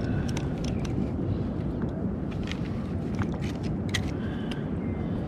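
Steady low rumble of wind and water on open ocean, with scattered short clicks.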